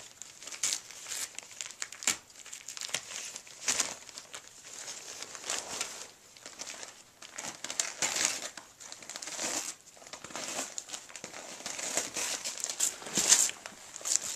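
Gift wrapping paper crinkling and tearing in irregular bursts as two small dogs rip it off a present, loudest near the end.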